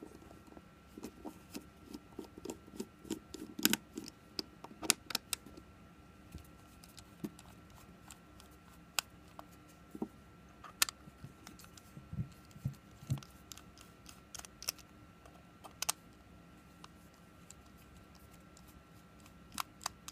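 Faint, irregular small clicks and taps of a precision Torx T5 screwdriver working the tiny screws out of a Pebble smartwatch's plastic back, with the watch being handled. The clicks come thickest in the first few seconds and sparser after, over a faint steady hum.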